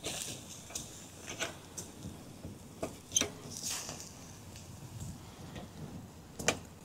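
Pork sausages and chops sizzling on the grill of a small folding charcoal fire pit, with irregular crackles and pops from the hot instant-light charcoal and meat fat.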